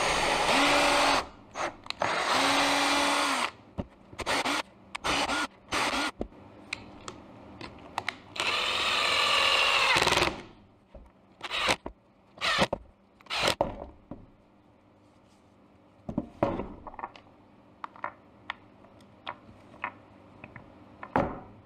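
Ryobi cordless drill and impact driver running in bursts while drilling and bolting through a stack of MDF layers: a few longer runs at the start, a string of short bursts, and one long run about halfway through. After that come scattered light clicks and knocks of the parts being handled.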